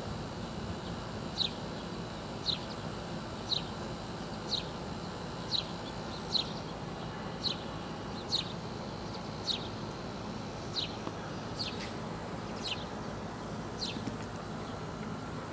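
A bird repeating a short, high chip that slides downward, about once a second, over steady low background noise.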